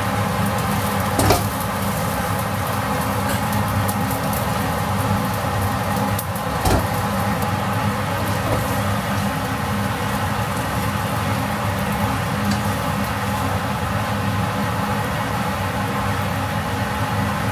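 A steady mechanical hum runs throughout. Two short knocks of a spatula come about a second in and again near seven seconds, as fried rice is scooped from the wok onto a plate.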